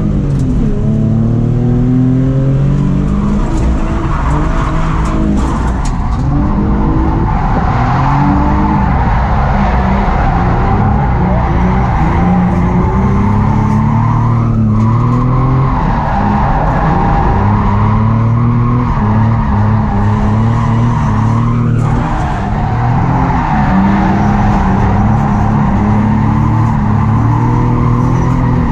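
Nissan 350Z engine revving hard, its pitch climbing and dropping over and over, with tyres squealing through a drift run.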